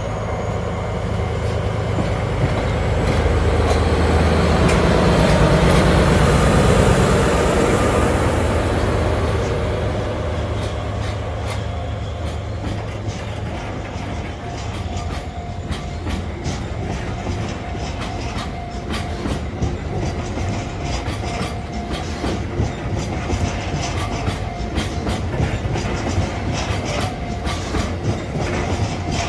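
A freight train hauled by a single diesel locomotive passing: the locomotive's engine rumble swells and peaks about five seconds in, then the wagons roll by with a long run of clickety-clack wheel clicks over the rail joints.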